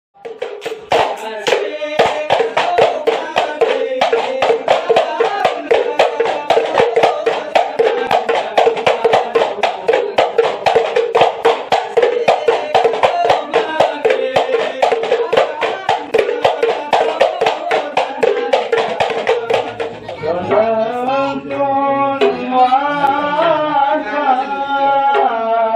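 Hadrah ensemble: frame drums beaten in a fast, even rhythm of about four or five strokes a second under held men's voices. About twenty seconds in the drumming drops back, and a chorus of men sings a devotional chant in unison.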